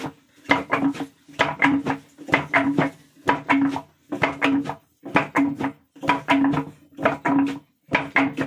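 Rhythmic knocking on wood: a cluster of sharp knocks about once a second, each carrying a low ringing note, like steady pounding in a wooden vessel.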